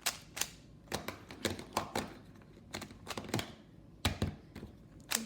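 Rubik's cube being turned quickly through a Y-perm algorithm: a fast, irregular run of sharp plastic clicks as the layers snap round.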